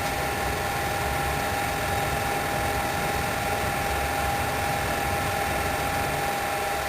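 8mm movie projector running, a steady mechanical whir with a constant hum.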